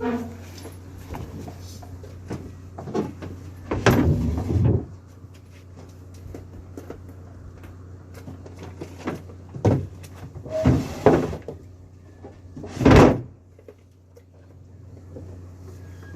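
Irregular knocks and clattering of gear being handled on a fishing boat's deck, the loudest about four seconds in, around eleven seconds and near thirteen seconds, over the boat's steady engine hum.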